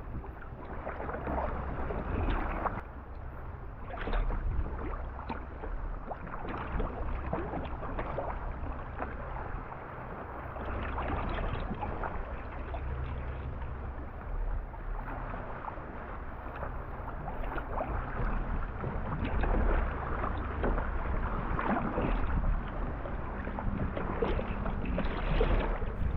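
Water splashing and lapping around a sea kayak as it is paddled, with irregular paddle splashes throughout.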